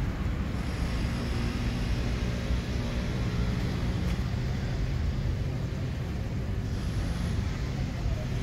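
Steady city road-traffic noise, mostly a low hum of passing engines and tyres.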